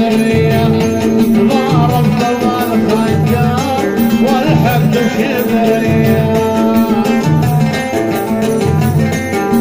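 Live Arabic party music played loud through a PA: a plucked-string melody over a steady drum beat.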